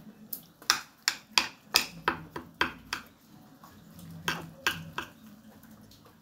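Close-up eating sounds: a run of about a dozen sharp clicks and smacks over the first five seconds, from a metal spoon working in a glass dish and from chewing. A faint low hum runs underneath from about two seconds in.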